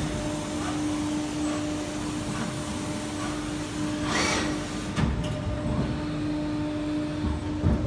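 SW BA 422 CNC horizontal machining center running with its coolant spraying, a steady mechanical hum with one steady tone. There is a brief hiss about four seconds in, a sharp click about a second later, and a knock near the end.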